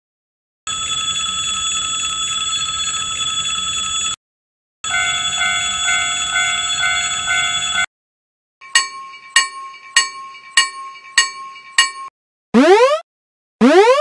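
Railroad crossing warning bells sounding one after another: a steady ringing for about three and a half seconds, then a lower ringing with a slight regular beat for about three seconds, then six slow bell strikes a little over half a second apart. Near the end, two short rising sound-effect glides.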